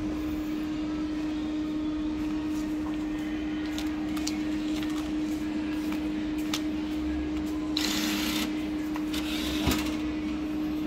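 Currency exchange machine's bill acceptor briefly whirring about eight seconds in as it draws in and reads a banknote, with a few small clicks, over a steady electrical hum.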